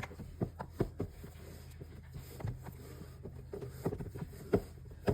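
Scattered soft knocks and taps of kitchen handling over a low steady hum.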